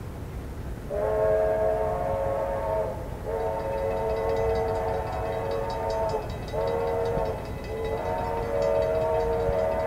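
Steam locomotive chime whistle blowing a chord in four blasts, long, long, short, long: the grade-crossing signal. A steady hiss sits underneath throughout.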